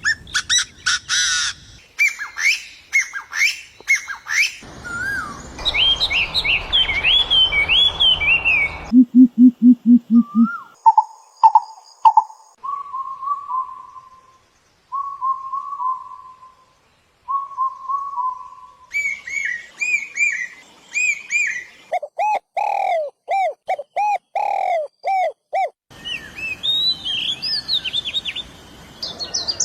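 A sequence of different birds' calls and songs, cut together and changing abruptly every few seconds. It runs from rapid high chirps and warbled song to a short run of low, fast-pulsed calls, then repeated three-note whistles and finally strings of evenly spaced descending calls. Some segments sit over a faint background hiss, others over silence.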